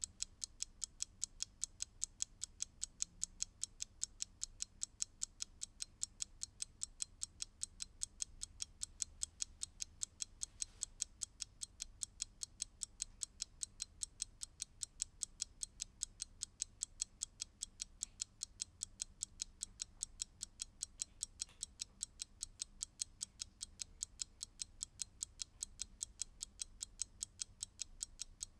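Mechanical clock ticking fast and evenly, about three to four crisp ticks a second.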